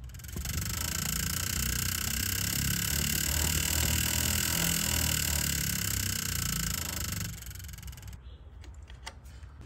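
Model T-style buzz coil on a spark plug tester buzzing steadily for about seven seconds as it fires a Champion RCJ8 spark plug, then cutting off.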